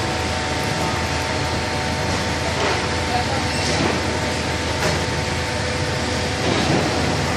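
Hydraulic baler running: a steady machine hum with constant tones, and a few light knocks.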